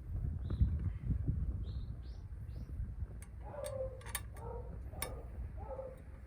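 Wind buffeting the microphone with a steady low rumble. A small bird chirps four or five times in the first half, and in the second half come several sharp clicks and a few short lower-pitched calls.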